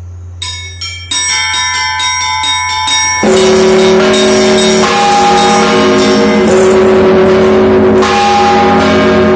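Russian Orthodox monastery bells ringing. The small high bells begin striking in quick succession about half a second in. At about three seconds the heavy bells join, and the whole set rings together in a dense peal of many overlapping tones.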